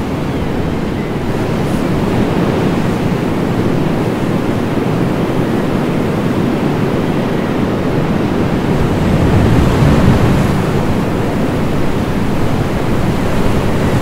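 Heavy surf breaking on a beach, a steady rushing roar of waves that swells a little about two-thirds of the way through, with wind on the microphone.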